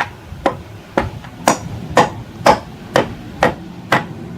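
Pedestal fan motor tapped lightly and repeatedly on a block of wood, a steady series of sharp knocks about two a second, to work its end cover loose.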